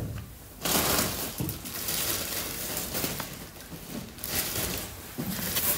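Paper rustling and crinkling close to the microphone, a sheet handled for about three and a half seconds, with a shorter rustle near the end.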